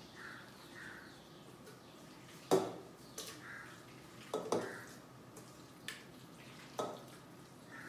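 Cookware being handled: a non-stick pan and utensils knocking and clinking about five times, with quiet gaps of a second or two between them.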